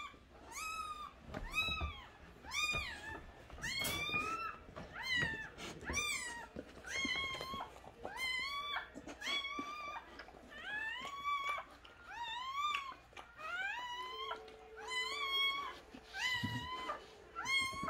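Newborn puppy crying: a steady string of high-pitched squeals, about one and a half a second, each rising then falling in pitch. A faint steady tone joins in near the end.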